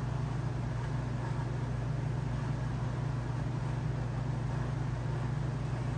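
A steady low electric hum with an even hiss over it, from a running fan-type appliance.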